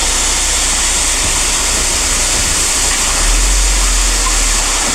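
Concrete mixer truck running during a pour: a steady engine hum, louder about three seconds in, under a loud, even hiss typical of concrete sliding down the truck's chute.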